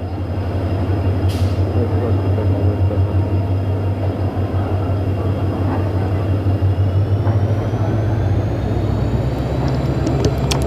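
Diesel locomotive engine of a WDG4 (a 16-cylinder two-stroke EMD engine) running under way: a steady low drone that grows stronger past the middle, with a high whine rising in pitch at the same time. A few light clicks near the end.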